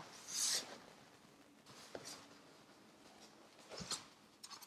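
Cardboard box and Styrofoam packing being handled and pulled out: a short scrape near the start, then faint rubbing and a few light knocks.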